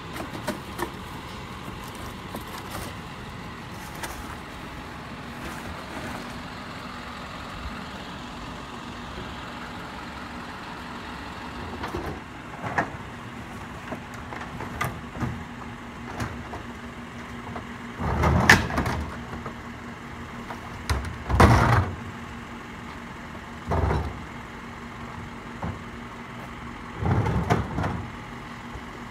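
Garbage truck running steadily, with a series of loud metallic clangs and rattles in the second half, the loudest two close together about two-thirds of the way through.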